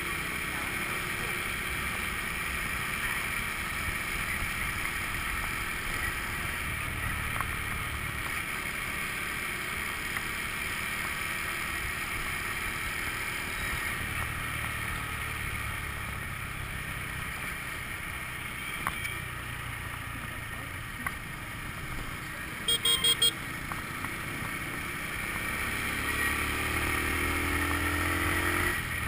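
Riding a Honda scooter: a steady rush of wind and road noise with the small engine running underneath, swelling and easing with the throttle. About two-thirds of the way through, a horn beeps four times in quick succession.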